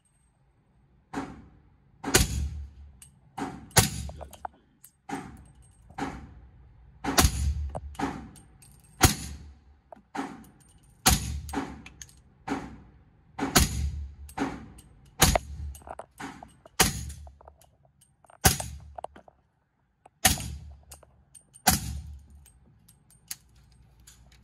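Suppressed .300 Blackout AR-pattern rifle firing 220-grain subsonic rounds through a SilencerCo Sandman-S suppressor. It fires single shots, about one every one and a half seconds, more than a dozen in all, and each shot has a short ringing echo off the range walls.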